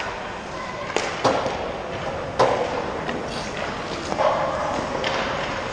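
Ice hockey play: sharp cracks of sticks and puck striking the ice and boards, one about a second in, another shortly after and a louder one near the middle, with skate blades scraping the ice.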